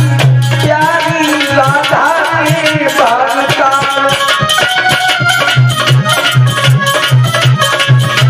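Devotional bhajan music: a harmonium plays chords while a hand drum beats a steady rhythm, and a male voice sings a melodic line over the first half.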